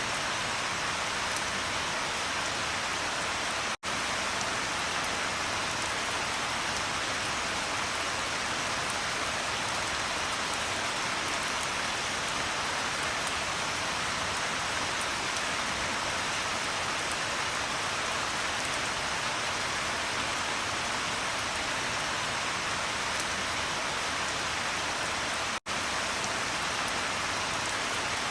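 Steady heavy rain falling, an even hiss that twice cuts out for an instant.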